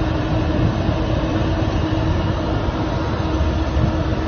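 Steady road and wind noise inside a moving car's cabin, with a constant hum underneath.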